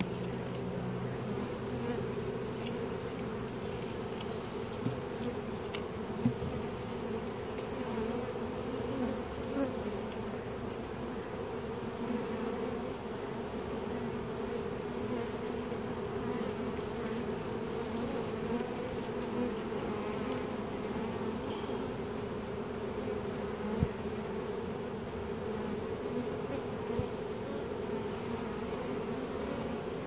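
Honeybee swarm humming steadily, a dense, even buzz from a mass of bees, with a few light taps here and there.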